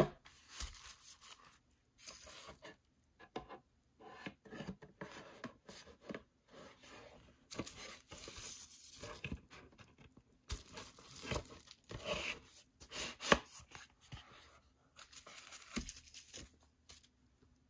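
Cardboard album box and paper inclusions handled on a sheet of bubble wrap: irregular rustling and crinkling with a few sharp knocks as the box is moved and set down, the loudest knocks coming near the end.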